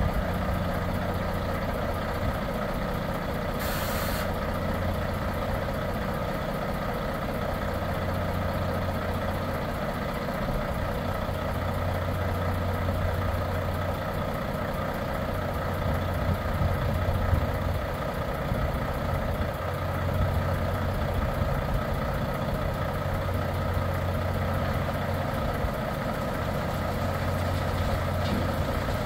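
Truck's diesel engine running steadily while the tipper trailer's body is slowly raised on its hydraulic ram. A short hiss of released air about four seconds in.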